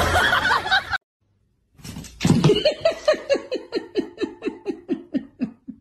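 A person laughing: a long run of quick, high-pitched 'ha' pulses, about four a second, each dropping in pitch. The laugh starts about two seconds in and slows and fades toward the end.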